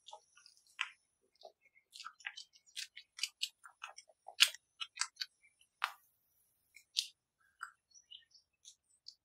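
Pink silicone spatula stirring thick, gloopy batter in a glass bowl: a quick, irregular run of small clicks, taps and wet smacks, busiest in the middle.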